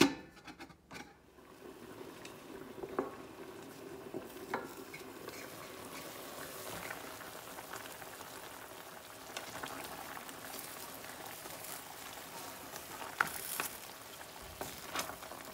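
Chicken pieces cooking in water in a stainless steel pan on high heat, a steady bubbling hiss of the liquid at the boil. A few sharp clicks of the lid and pan, and near the end a wooden spatula stirring the chicken against the pan.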